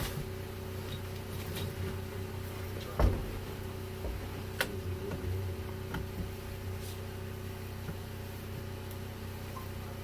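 A steady low mechanical hum, with a few sharp knocks over it; the loudest knock comes about three seconds in.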